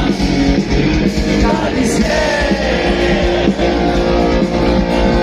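Live rock band playing loudly with a singer, electric guitars and drums, heard from the crowd.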